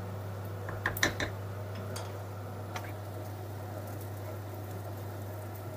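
A few light clicks and knocks of kitchen utensils against cookware, clustered about a second in, then twice more singly, over a steady low hum.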